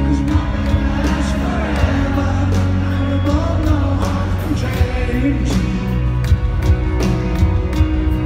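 Live rock band playing a slow piano ballad: grand piano and drums with regular cymbal strikes, under a sung vocal line.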